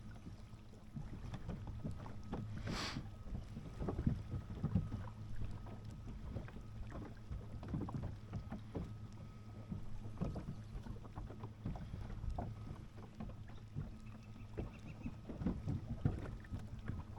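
Wind rumbling on the camera microphone, with scattered light knocks and handling noises. There is a brief whoosh about three seconds in.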